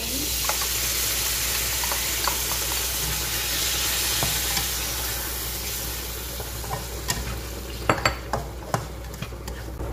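Ground meat tipped into hot oil and sautéed onion and garlic in a nonstick frying pan, sizzling. The sizzle is loudest as the meat lands and dies down over several seconds. Near the end a nylon spatula taps and scrapes against the pan as the meat is stirred.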